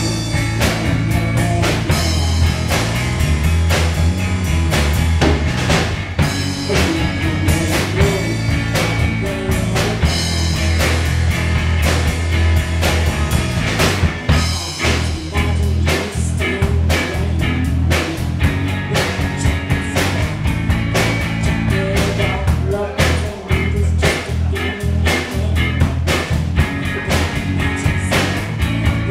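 A live three-piece rock band playing: electric guitar, electric bass guitar and drum kit, with a heavy bass line under a steady drum beat.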